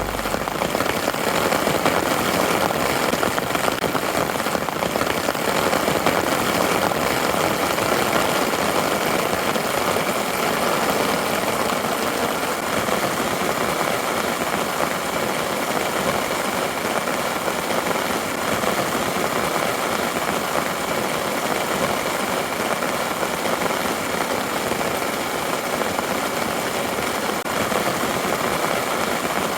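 Steady rain falling in woodland, an even hiss with no breaks or changes in level.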